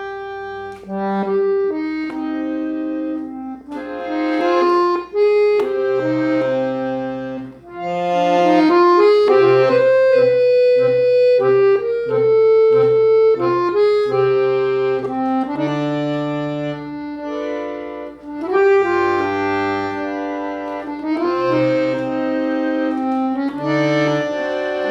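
Instrumental break in a slow ballad: a melody of held notes over chords and short bass notes, with no singing.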